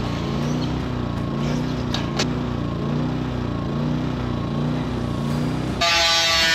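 A small engine running steadily with a regular pulsing beat. About six seconds in a power tool abruptly takes over, cutting corrugated steel roofing sheet with a loud, high, wavering whine.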